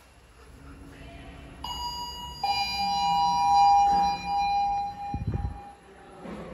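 Elevator arrival chime: a two-note ding-dong, a higher note followed by a lower, louder one that rings on for about three seconds. A short low thump comes near the end.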